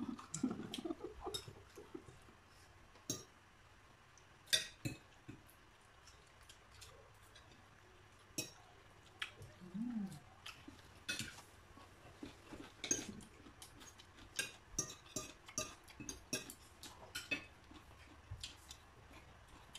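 Spoons and forks clinking and scraping against dinner plates as several people eat, in short irregular clicks. A brief low murmur is heard about halfway through.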